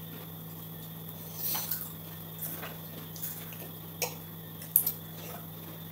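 Scattered clinks and taps of cutlery and dishes at a meal table, the sharpest about five seconds in, over a steady low hum.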